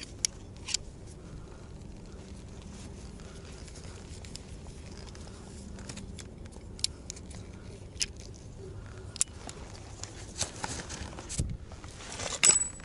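Scattered light clicks and scrapes of boots and climbing hardware on rock during a downclimb. Near the end comes a burst of louder metallic clinking with a thin ringing note.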